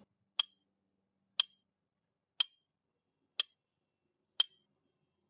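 Countdown-timer tick sound effect: sharp, clock-like ticks, one each second, five in all.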